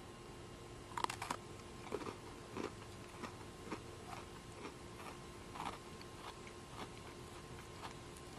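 A person bites into a Coca-Cola Oreo sandwich cookie with a crisp crunch about a second in, then chews it with a run of softer, irregular crunches.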